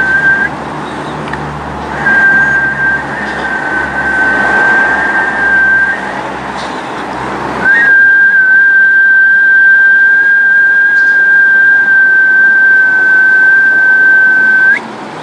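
A loud, steady, high whistle-like tone held at one pitch. It cuts out twice and resumes, the last stretch lasting about seven seconds before it stops with a brief upward flick, over a background hiss.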